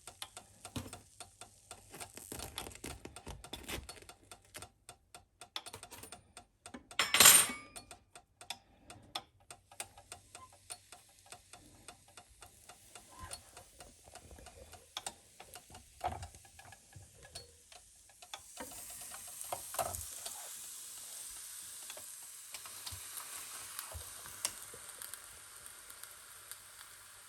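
Kitchen cooking sounds: a run of light clicks and taps of utensils, with one loud clatter about seven seconds in. About two-thirds of the way through, a steady sizzle of food cooking starts and keeps going.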